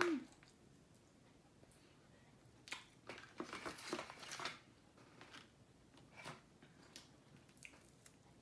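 Crisp skin of a whole fried chicken crackling and tearing as it is pulled apart by hand over a paper liner, in a cluster of crackles and rustles around three to four and a half seconds in, with a few small clicks after. A short hum rising and falling in pitch comes at the very start.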